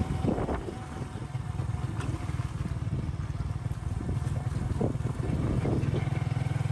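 An engine running steadily, a low even throb with fast regular firing pulses, under a haze of wind and road or water noise.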